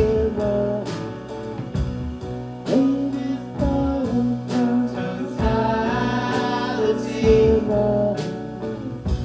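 Live band music: guitar and other instruments playing with sung vocals, a steady beat of strikes about once a second.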